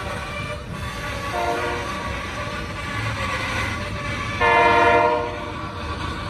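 Diesel freight locomotive's air horn blowing for a road crossing: a shorter, weaker blast about a second and a half in, then a loud blast of about a second near the five-second mark. Underneath, the steady rumble and clatter of freight cars rolling along the rails.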